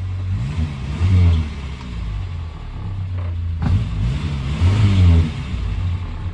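Morris Minor's four-cylinder petrol engine running, revved twice so that its pitch rises and falls back to a steady idle.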